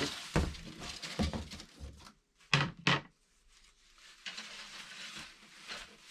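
Knocking and rustling as the parts and packaging of a flat-pack shoe bench are handled, with two sharp knocks close together a little under halfway through.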